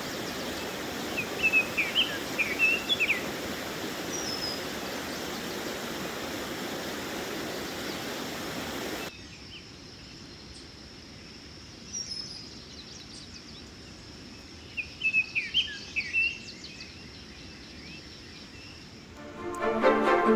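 A songbird singing short, quick chirpy phrases over a steady rushing background. About nine seconds in, the rushing drops away abruptly and the same song comes twice more against a quieter backdrop. Music starts near the end.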